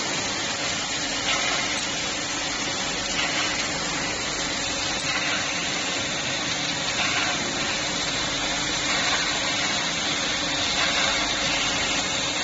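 Fiber laser cutter cutting thick steel plate: a steady hiss from the cut, with a faint machine hum under it and small swells in loudness every second or two.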